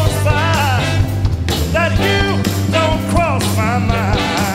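Live soul band playing, with a male lead vocal singing a gliding melody over steady bass, keyboard and rhythm.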